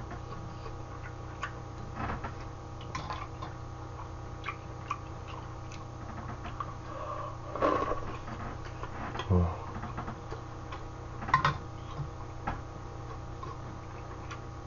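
Eating: chewing and mouth sounds with scattered light clicks of metal chopsticks and spoon against a metal bowl and pot, over a steady low hum. A few louder short mouth sounds stand out about two, eight, nine and eleven seconds in.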